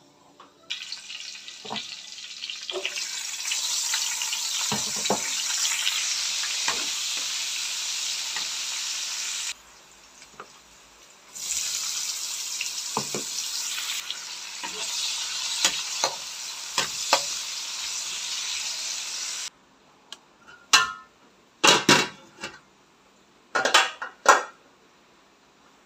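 Garlic, onion and meat frying in hot oil in a steel wok: a steady sizzle with small clinks of stirring. The sizzle breaks off for a couple of seconds, runs on, then stops abruptly, and a few sharp knocks follow near the end.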